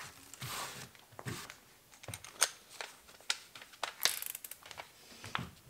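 Scattered light clicks, knocks and short scrapes of workbench handling: wood shavings brushed off a timber block by a gloved hand, and a cordless hammer drill set down on the bench.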